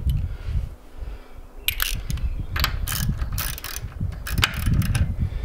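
A 3/8-inch drive socket ratchet clicking in several quick bursts from about a second and a half in, as it tightens the lug nuts on a spare wheel. Wind buffets the microphone underneath.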